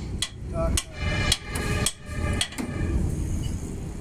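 Hammer blows on the steel wheel hub of a KATO crane, about two strikes a second with a metallic ring, stopping a little under three seconds in.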